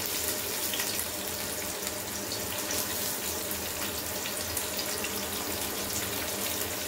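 Cumin seeds, green chillies and garlic sizzling in hot oil in a kadai, a steady hiss with faint crackles.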